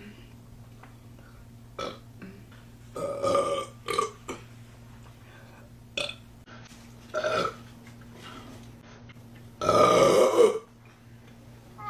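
A woman burping: a string of short burps, then one long, loud burp near the end.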